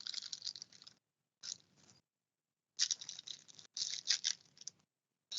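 Foil trading-card pack being torn open and its wrapper crinkled, in three short spells of crackling with brief pauses between.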